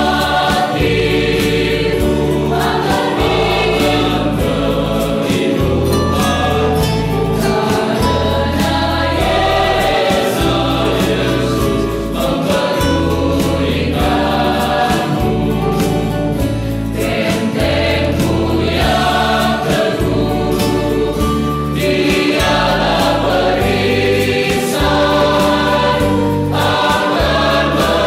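Mixed choir of men and women singing an Indonesian gospel song in parts, over held low bass notes that change every second or two.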